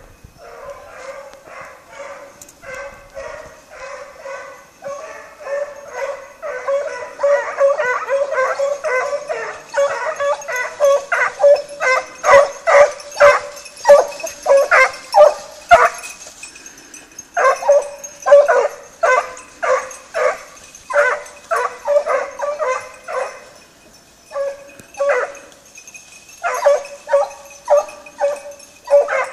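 Two hunting hounds baying in rapid, repeated cries while running on a hare's scent, the voices overlapping at times and breaking off briefly twice before resuming.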